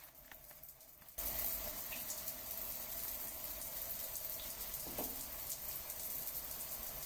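Running water: a quieter flow with faint drips, then an abrupt jump about a second in to a louder, steady rush of water that carries on. A short falling note sounds faintly past the middle.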